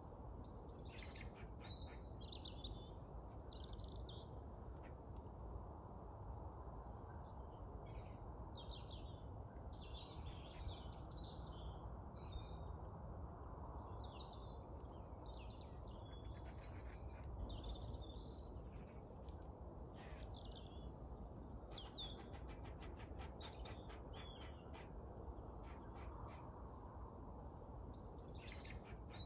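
Small birds chirping and calling, with a squirrel's chattering alarm call, a fast run of clicks, coming in a few runs. A steady low background rumble lies under it all.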